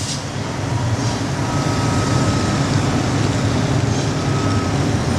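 A high hiss cuts off at the very start, leaving steady workshop machinery running with a low hum and a faint thin whine.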